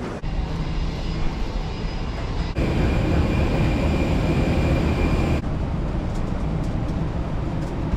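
Steady noise of a jet airliner at the gate during boarding, in three stretches joined by sudden cuts. The middle stretch carries a high steady whine.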